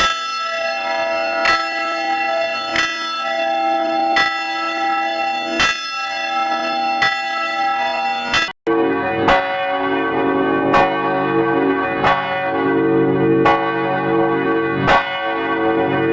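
Church bells ringing, a strike about every one and a half seconds, their tones ringing on and overlapping between strokes. A little past halfway the sound cuts out for an instant and a deeper-toned peal carries on at the same pace.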